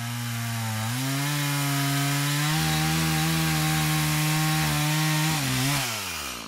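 Two-stroke chainsaw cutting into a log: the engine pitch rises about a second in and holds steady under load in the cut, then falls away near the end as the throttle is let off and the bar comes out of the wood.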